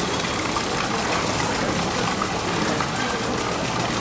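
Steady rush of running water in a polar bear pool enclosure.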